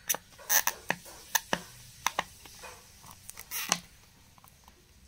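A small cardboard earphone box handled in the hands: irregular clicks, taps and short scratching rubs as fingernails pick at the box and its clear seal sticker. The scratching is loudest about half a second in and again about three and a half seconds in, and it thins out near the end.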